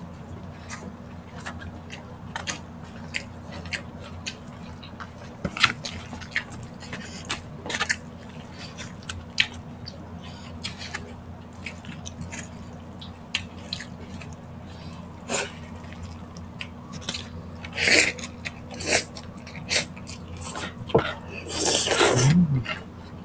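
Close-miked eating: chewing and wet mouth sounds with many short clicks of a metal spoon on foam food trays, over a steady low hum. A louder mouth noise with a short hum comes near the end.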